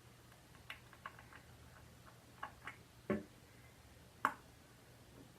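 A 110-to-220 V voltage converter plugged in with its switch on, giving a faint steady low hum with a handful of faint, irregular ticks and clicks. It is a sound the owner says does not sound good, the reason he advises against plugging it in while switched on.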